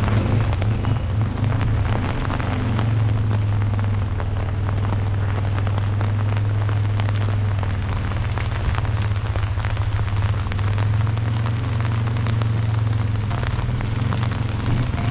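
Rain falling steadily, a dense crackle of drops, over a steady low hum.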